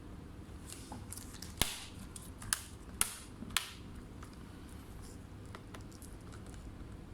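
Four sharp clicks in about two seconds, as of small laptop parts being handled, then a faint steady background.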